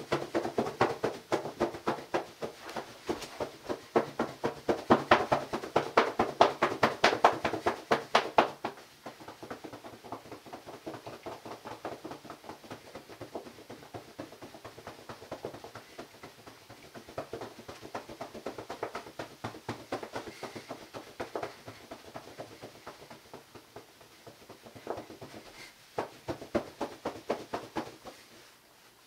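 Towel rubbed briskly over a face and head, a fast run of scrubbing strokes, loud for about the first eight seconds, then softer and lighter until near the end.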